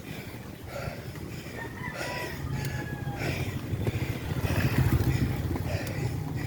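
Low rumble of road traffic, growing louder past the middle, with a rooster crowing once in the background about two seconds in.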